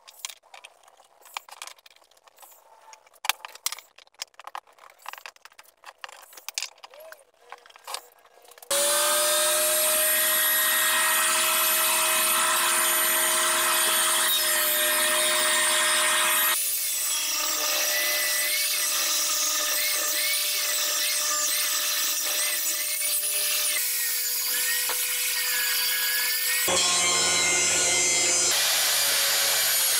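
Faint scattered clicks and knocks of boards and clamps being handled, then a Carbatec benchtop thickness planer starting suddenly about a third of the way in and running loud and steady as a board is fed through it.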